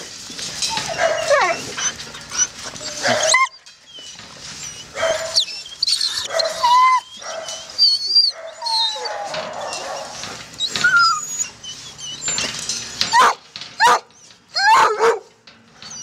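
A pack of foxhounds whining and yelping together, many calls overlapping, some of them sliding down in pitch, with a brief lull about three and a half seconds in.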